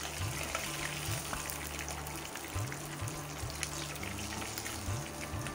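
Pieces of katla fish sizzling and crackling in hot mustard oil in a frying pan while a wooden spatula lifts them out, with background music underneath.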